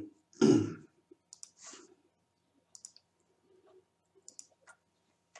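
Computer mouse button clicks, scattered and short, several in small groups. One brief, louder noise comes about half a second in.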